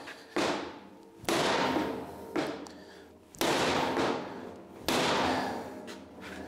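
Mallet blows on the handle of a large steel wrench seated on a seized bottle-jack nut: about five sharp strikes roughly a second apart, each followed by a brief ring. The hammering is an attempt to shock the stuck nut loose, and it does not move.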